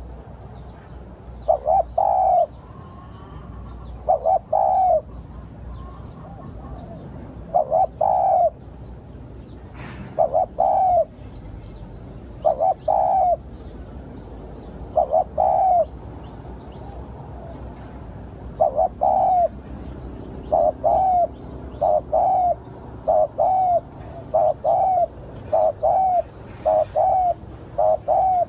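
Spotted dove cooing: short repeated coo phrases, spaced a couple of seconds apart at first, then coming faster and more evenly over the last ten seconds. Small birds chirp faintly behind.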